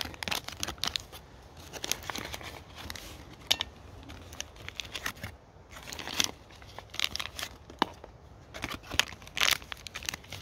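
Stiff plastic MRE ration packaging being handled and torn, crinkling and crackling in irregular bursts.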